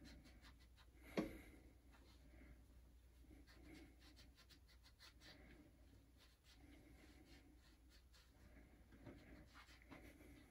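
Faint scratchy rubbing of a paper towel pressed and worked over black vinyl on a pinball drop target, burnishing the vinyl down, with one small knock about a second in.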